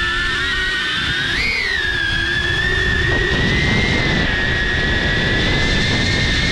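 DJI Avata FPV drone's propellers and motors whining, recorded by a GoPro mounted on the drone. The pitch rises briefly about a second and a half in, then holds steady. Rushing air noise grows from about three seconds in as it flies forward.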